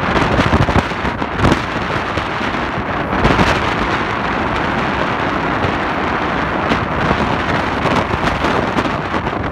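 Wind buffeting the microphone from a moving passenger train: a loud, steady rush with irregular crackles and thumps, over the running rumble of the coaches on the track.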